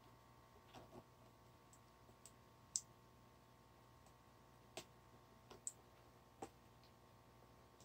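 Scattered small clicks and taps of fingernails on a plastic jar of body scrub as its lid and inner seal are picked open, about eight in all, the sharpest nearly three seconds in, over near silence.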